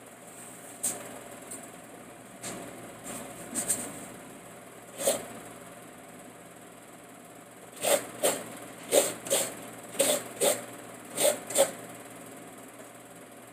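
Whole mature coconut knocked against a hard edge on a wooden block to crack its shell open. A few scattered hollow knocks come first, then a quick run of about eight in the second half. A steady low hum runs underneath.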